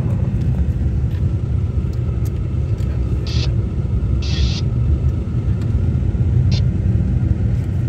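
Steady low rumble of a vehicle's engine and tyres on the road, heard from inside the moving cab, with a few short hisses.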